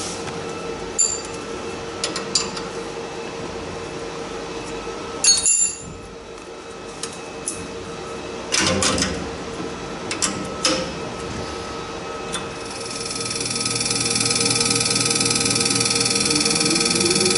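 Sharp metallic clicks and knocks of high-pressure lines and fittings being connected to a diesel injector on a common-rail test bench, over a steady hum. About twelve seconds in, the test bench's pump drive starts up and rises to a steady, louder running noise with a high whine.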